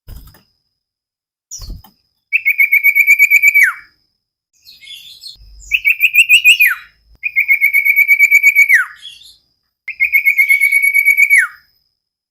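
Common iora singing: four loud phrases, each a rapid trill held on one pitch that ends in a quick downward slur, with softer chirps in between.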